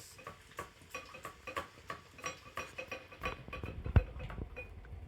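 Dog eating wet food from a bowl: rapid repeated clinks, about three a second, as its tongue and teeth knock the bowl, each leaving a short ring. From about three seconds in, duller thuds join as the bowl shifts, with one louder knock about four seconds in.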